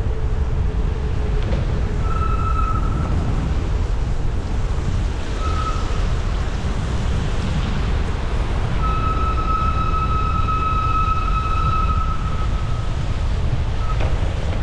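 Wind rushing over the microphone as a bicycle descends fast through a road tunnel, a steady heavy rumble. A thin high whistling tone comes and goes three times over it, the longest lasting about three seconds.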